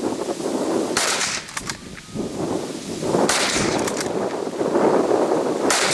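Three hunting gunshots fired at a running wild boar, about two and a half seconds apart, each followed by a short echo or crackle.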